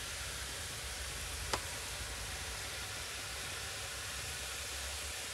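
Hot oil in a kadhai sizzling steadily as strands of dough pressed into it fry, with one sharp click about a second and a half in.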